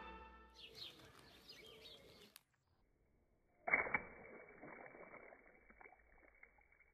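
A water balloon bursting as a dachshund bites it: a sudden pop and splash of water about halfway in, then faint small sounds of the water and the torn rubber.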